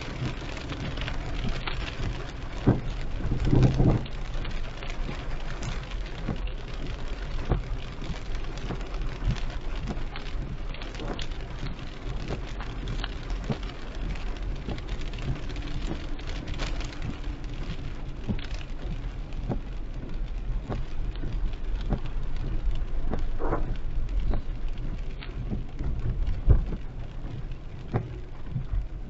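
Heavy rain pattering on a moving car, with many individual drops striking over a steady low engine and road rumble. A louder low rumble swells about three to four seconds in, and there is a sharp knock near the end.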